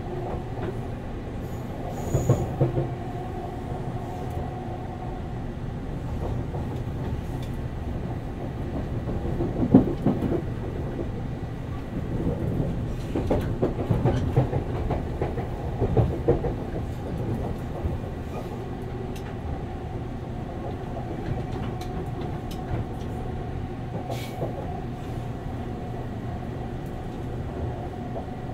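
Running noise heard inside a JR 189-series electric train's motor car (MoHa 189) travelling at speed: a steady hum from the motors and running gear under the floor. Wheel knocks and clatter over the track come about two seconds in and again through the middle, loudest around ten seconds in.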